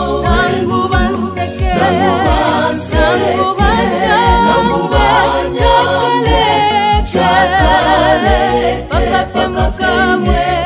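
Gospel song: singing voices with vibrato over a steady low drum beat.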